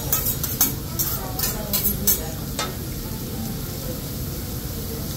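Food sizzling on a teppanyaki grill, with a quick run of sharp clacks and scrapes from utensils on the steel griddle during the first two seconds.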